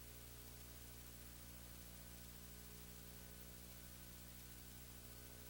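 Faint steady electrical hum with a constant hiss and no other sound.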